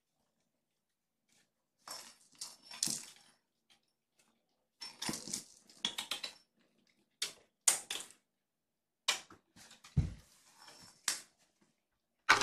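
Scattered clatters, taps and rustles of kittens playing with toys on a hard floor and a person moving about, in short bursts after a couple of quiet seconds, with one heavy low thump about ten seconds in.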